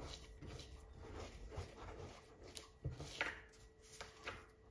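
Hands rounding a ball of oiled pizza dough on a worktop: faint soft pats and rubbing of hands against the dough and counter.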